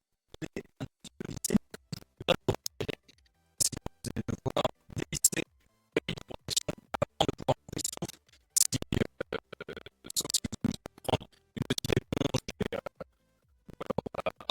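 Irregular scratching and clicking handling noises, in quick clusters of short sharp sounds with brief pauses.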